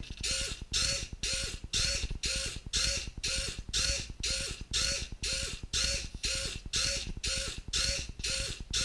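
BMS-210DMH servo at 5 V sweeping back and forth, its motor and gears whirring in short bursts about twice a second, each burst a high whine with a brief rising tone.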